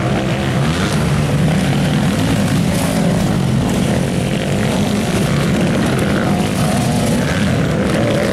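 Motocross bikes' engines running loud on the track, revving as riders pass one after another, the pitch rising and falling.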